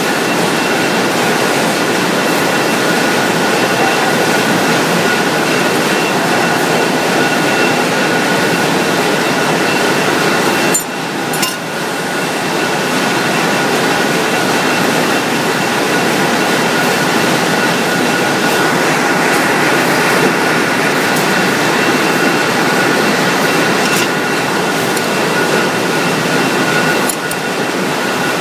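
Wire drawing machine running, its capstan drum pulling steel wire: a loud, steady mechanical noise with a thin high whine over it, dipping briefly about eleven seconds in and again near the end.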